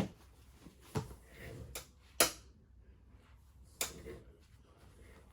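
Clothes being handled and pulled apart to unfold them: soft rustling with several sharp clicks, the loudest a little over two seconds in.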